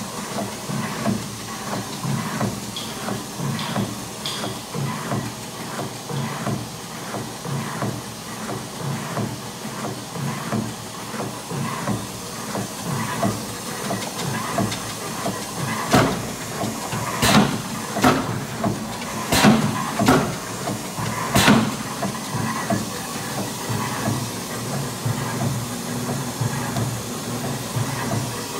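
Bliss C-45 45-ton punch press running, its motor and flywheel giving a steady mechanical hum with a fast rhythmic clatter. About halfway through, six sharp clanks come roughly a second apart as the press strokes.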